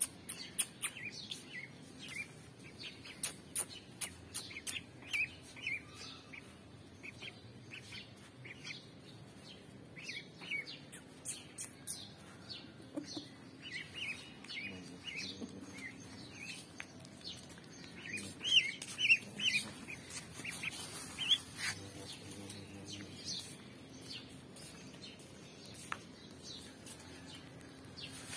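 Duckling peeping: short, high chirps repeated irregularly, thickest and loudest about two-thirds of the way through, with scattered sharp clicks.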